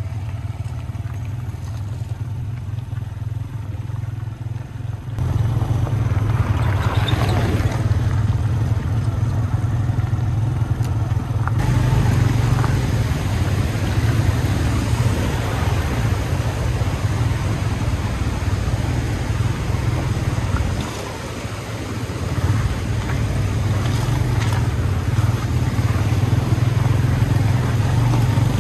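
Motorcycle engine running steadily while riding over a rough gravel track, getting louder about five seconds in. About twelve seconds in, a broad rushing hiss of a fast river and wind joins it.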